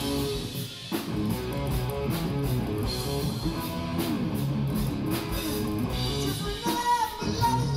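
Live rock band playing: electric guitars over a drum kit, with a short drop in the music about half a second in and a held high note near the end.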